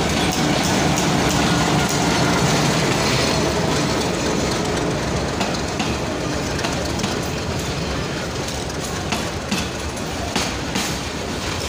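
Bangladesh Railway passenger train passing close by: the diesel locomotive's engine runs for the first few seconds, then the passenger coaches roll past with their wheels clacking over the rail joints.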